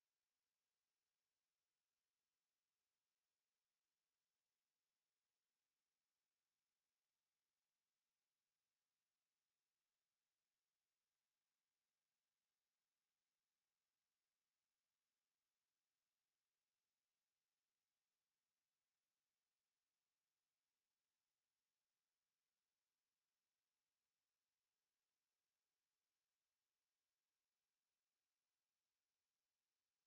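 A steady, high-pitched pure sine-wave test tone at 11835 Hz, held unchanged at a constant level.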